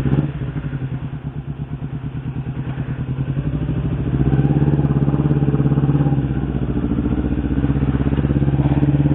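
Engine of a Honda CB motorcycle fitted with a Kawasaki Ninja four-stroke engine, running as the bike rides slowly. It gets louder over the first three to four seconds, then holds a steady note.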